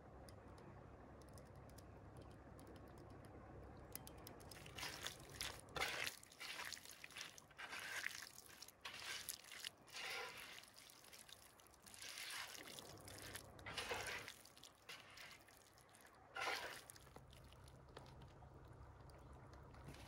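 Hands squelching and squishing raw chicken strips in olive oil and spice rub on a wooden board, in irregular wet bursts that start about four seconds in and die away near the end.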